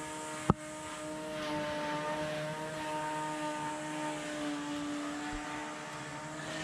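A steady engine drone with a pitched tone that wavers slowly in pitch, and one sharp click about half a second in.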